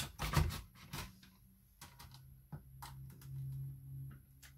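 Tupperware Mandoline Junior slicer cutting a cucumber end held in its remnant holder: a few separate short clicks and scrapes as the holder is pushed over the blade, with a faint low hum from about halfway.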